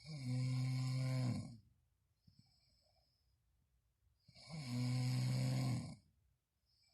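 A person snoring very loudly: two long, low snores about four seconds apart, each lasting about a second and a half, with a faint breath between them.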